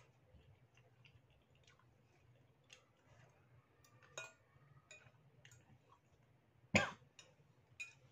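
Quiet eating sounds: a metal spoon and fork clink against a ceramic soup bowl several times, the clearest about four seconds in with a short ring. A louder, sharp sound comes just before seven seconds.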